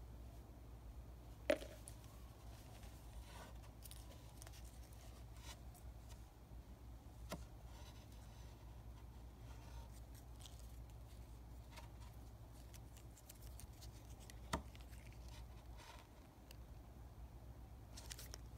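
Faint clicks and rustles of hands handling a stainless-steel wristwatch and its paper hang tags, with two sharper clicks, one about a second and a half in and another about fourteen seconds in, over a low steady hum.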